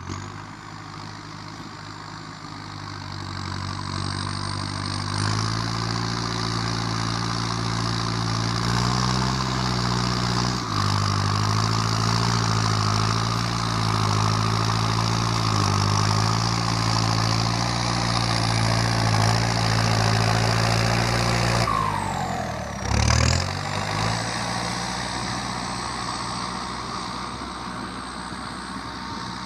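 Kubota tractor's diesel engine with a modified loud exhaust pipe, working as the tractor pushes soil with its front blade. The engine grows louder over the first few seconds and its revs rise and fall a few times. About two-thirds of the way in the revs dip and surge in a brief louder swell, then the engine settles quieter.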